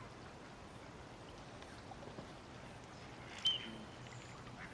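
Faint outdoor ambience at a duck pond, a steady soft hiss, with one short high chirp from a small bird about three and a half seconds in.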